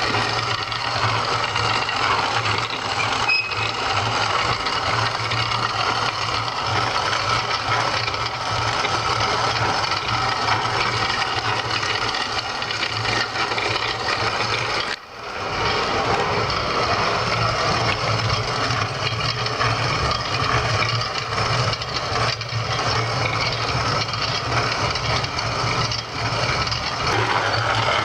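C. S. Bell No. 2 hand-crank grain mill grinding wheat into flour: a continuous mechanical grinding noise as the crank turns and the kernels are crushed. It breaks off briefly about halfway through.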